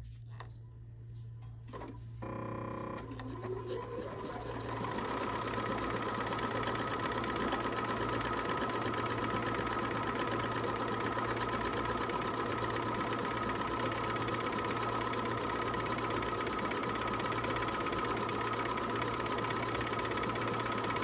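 Bernina 475 Quilters Edition sewing machine started from its start/stop button at a reduced motor speed, sewing a decorative tulip stitch. It starts about two seconds in, builds over a couple of seconds and then runs steadily.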